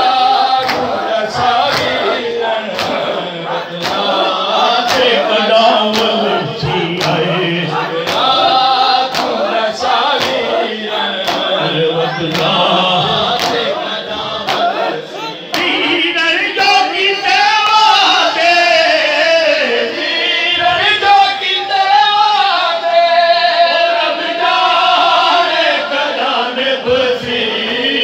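A crowd of men chanting a mourning nauha together in a loud, ragged chorus. Hands strike chests in matam about twice a second, clearest in the first half.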